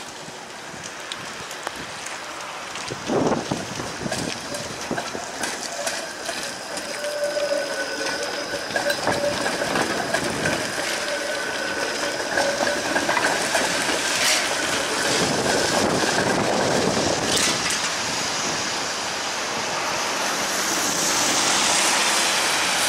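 Bombardier Flexity Outlook streetcar passing close by on wet track, with clicks from the wheels over the rails and a steady whine held for several seconds in the middle. Rain and wet-road hiss run underneath, and a louder hiss near the end comes from a car's tyres on the wet road.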